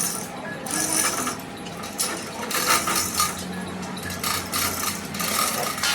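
Metal being worked with hand tools: irregular scraping and clinking in short bursts.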